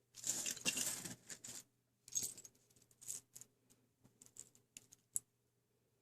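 Small plastic vending-machine charms clattering and clicking against one another as they are pushed around and picked through by hand: a busy rattle for about the first second and a half, then scattered single clicks, the last one sharp at about five seconds.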